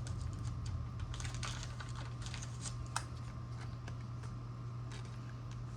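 Trading cards and a plastic card sleeve being handled, giving small irregular clicks and short rustles over a steady low hum.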